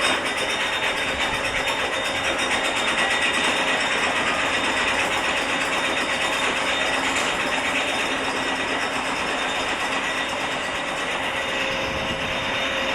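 Roller coaster's lift mechanism clattering rapidly and steadily, with a steady mechanical whine, typical of a car being hauled up the chain lift.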